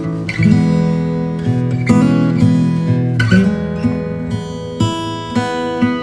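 Background music: acoustic guitar playing plucked and strummed chords.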